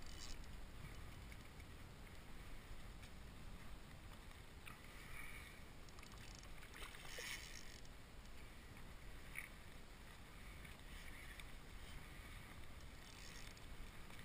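Water lapping against a kayak hull, faint over a low steady rumble, with a few brief soft noises about five, seven and nine seconds in.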